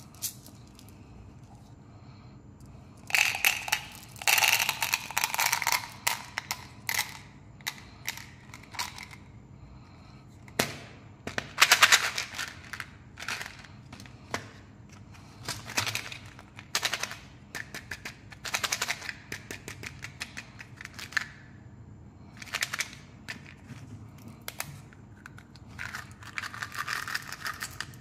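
Small hard candies rattling and clattering in a plastic candy bottle and against the hand, with plastic caps and packs clicking, in bursts of rapid clicks separated by short pauses.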